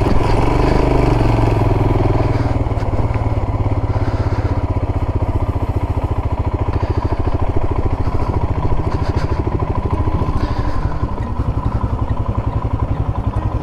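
Royal Enfield Himalayan's single-cylinder engine running at low speed as the bike rolls in and pulls up, then idling with an even, steady pulse.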